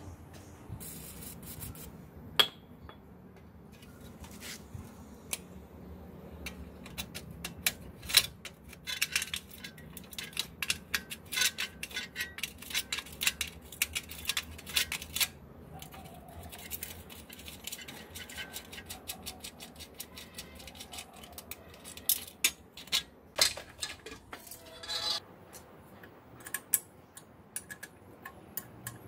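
Metal clicks and clinks from tools and bicycle parts being handled, coming in dense runs of rapid clicks with single sharper knocks between them.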